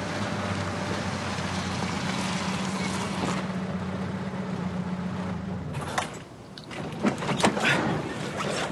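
A motor vehicle's engine running steadily with a low hum, cutting out about six seconds in; it is followed by several short sharp knocks and clicks.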